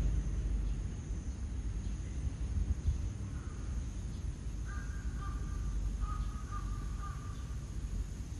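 A crow cawing several times in a quick series in the middle, over a steady low rumble.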